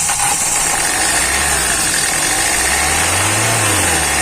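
Hyundai i20's 1.4 CRDi diesel engine running just after it has started, its pitch rising and falling twice as the throttle is blipped to clear air from the fuel system. It has just come back to life after a number-one injector that was dumping too much return fuel, and so killing rail pressure, was replaced.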